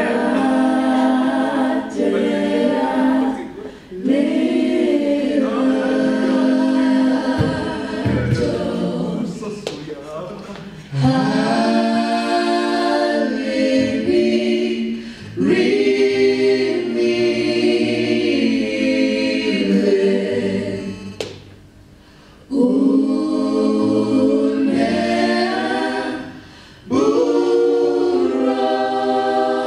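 A mixed-voice church praise team singing a worship song a capella in close harmony, in held phrases with brief breaks between them.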